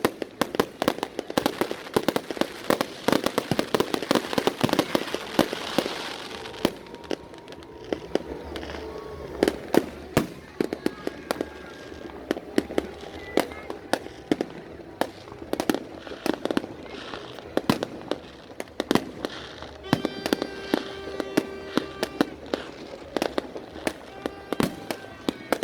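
Fireworks going off in a rapid string of bangs and crackles, densest for the first six or seven seconds, then thinning to scattered bangs. A steady pitched tone with many overtones comes in about twenty seconds in, with voices in the background.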